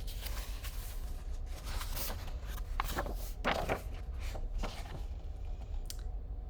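Paper rustling and soft clicks from a picture book's pages being handled and turned, over a steady low hum.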